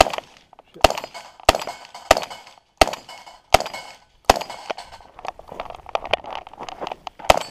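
Shotgun firing in quick succession, about seven sharp shots roughly 0.7 s apart, spent shells ejecting. After a pause filled with small clicks, one more shot comes near the end.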